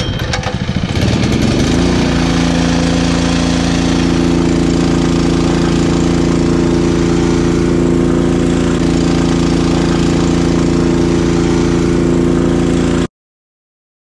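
Small engine-driven transfer pump on a sap truck starting up, picking up speed over the first couple of seconds, then running steadily as it pumps maple sap into a storage tank. The sound cuts off abruptly near the end.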